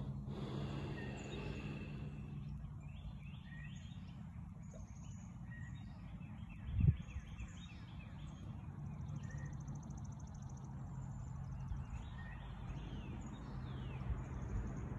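Outdoor ambience with small birds chirping repeatedly over a steady low hum, and a single thump about seven seconds in.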